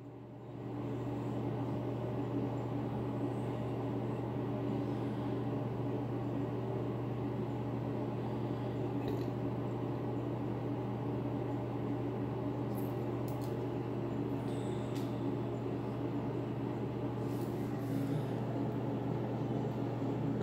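A steady low hum under faint hiss, with a few faint clicks about halfway through and again near the end.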